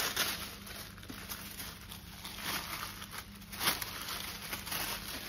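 Tissue paper and plastic wrapping rustling and crinkling as hands pull them apart, with a sharper crackle about three and a half seconds in.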